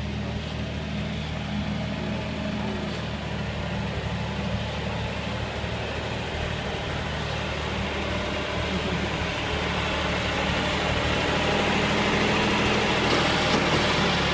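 John Deere farm tractor with a front-end loader, its engine running steadily at low speed as it is driven, getting louder as it comes close.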